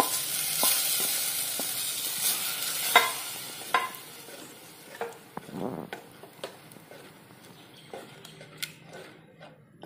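Sizzling as cooked beans and lentils go into hot fried masala in a clay pot. The sizzle dies away over the first four seconds or so as the wet beans cool the pot, while a wooden spatula stirs and knocks against the clay now and then.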